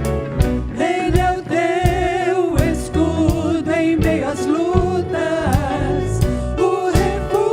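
Christian worship song: voices singing sustained notes with vibrato over a band with bass and a steady drum beat.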